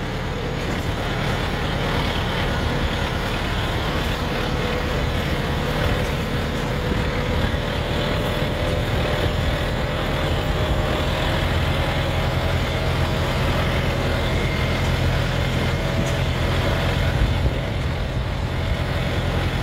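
Kubota M6040 narrow tractor's four-cylinder diesel engine running steadily, its pitch edging slightly higher over the second half.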